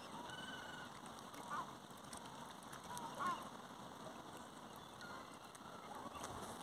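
Waterfowl calling: a few short calls over a faint steady outdoor hiss, the loudest about three seconds in.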